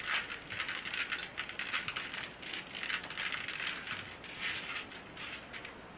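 Loose grit and debris on a floor being brushed and spread by hand: a dense, crackling rustle that comes in uneven waves and dies away near the end.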